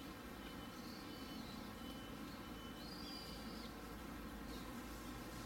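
Faint high bird calls, a few short chirps and one longer arcing call about three seconds in, over a steady low background hum.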